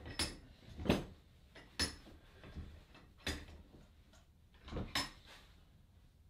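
A handful of separate metallic clanks and knocks, the loudest about a second in, as hand tools are worked on a limited-slip differential held in a steel bench vise. The ring gear bolts are being tightened.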